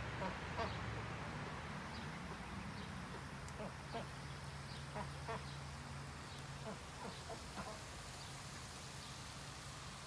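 Domestic ducks quacking: short quacks, a few in quick succession near the start and then in small runs in the middle, thinning out after about eight seconds. A steady low hum runs underneath.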